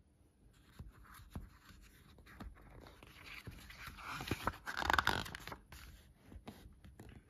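A page of a picture book being turned by hand: paper rustling and scraping, loudest about four to five seconds in, with small taps and handling noises around it.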